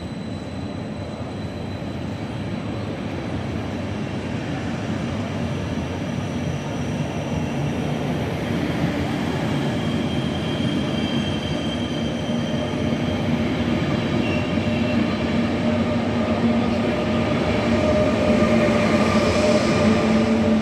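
Train running into a railway station, growing steadily louder as it approaches, with a steady pitched whine coming in over the second half.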